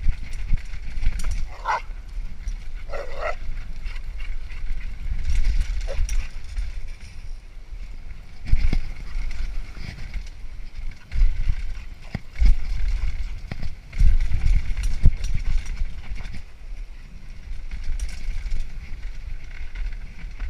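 Wind buffeting the microphone and a jolting rumble with knocks from moving fast over a rough dirt trail, with two short dog yelps a couple of seconds in.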